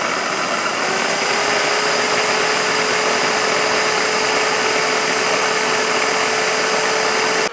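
Electric drill driving a homemade mixer-grinder jar, its blades grinding grated coconut with a little water into a paste. The motor's whine climbs in pitch as it finishes spinning up during the first second, then runs steadily before being switched off abruptly at the end.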